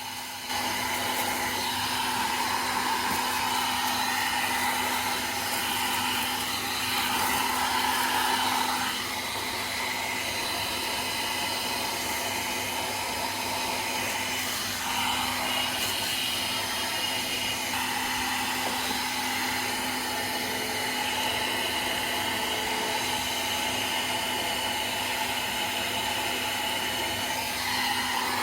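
Nova NV 1290 1000-watt hair dryer running: a steady whir of its fan motor and rushing air over a constant hum. Its tone shifts a few times, about a third of the way in and again around halfway.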